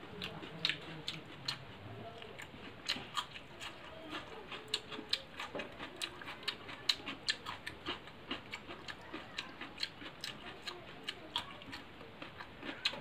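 Close-up chewing and lip-smacking of a person eating rice and curry by hand, a steady run of wet mouth clicks several times a second.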